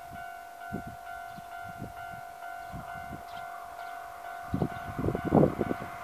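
Japanese railway level-crossing warning bell ringing with a steady, repeating electronic tone while the barriers are down, signalling an approaching train. Irregular low rumbles under it grow louder about four and a half seconds in.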